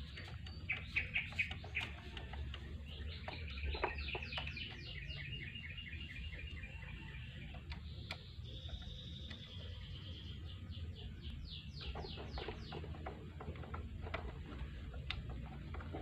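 A bird singing: quick repeated chirps, then fast trills of falling notes, a held whistle about halfway through, and more falling trills, over a steady low hum with a few faint clicks.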